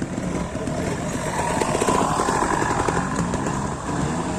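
Trials motorcycle engine revving, its pitch rising and falling with the throttle.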